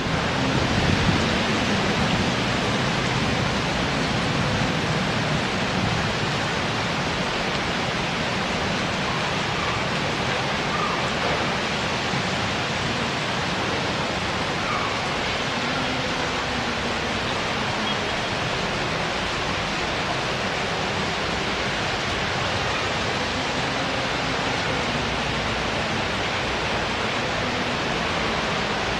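Heavy tropical rain pouring down steadily, a dense even hiss, with a faint low hum rising and falling now and then underneath.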